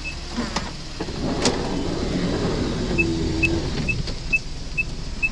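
A car's electronic warning beeper sounding short high beeps, about two a second, from about three seconds in, over a low rumble of vehicle noise, with a single click about a second and a half in.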